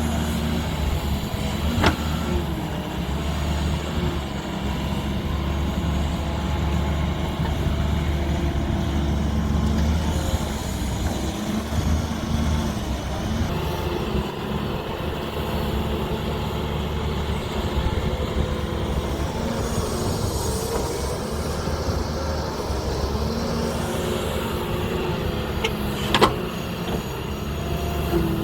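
JCB backhoe loader's diesel engine running steadily as it works, its note shifting around the middle, with a sharp knock about two seconds in and a louder one near the end.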